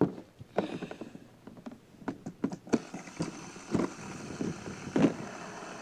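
Irregular light clicks and knocks of die-cast toy cars and plastic track pieces being handled and set in place, over a faint steady hiss that comes up about halfway through.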